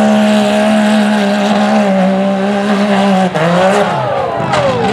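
Rock bouncer buggy's engine held at high revs in one steady, level note as it claws up a rock face. About three seconds in the revs break, then waver and fall away as the buggy rolls over.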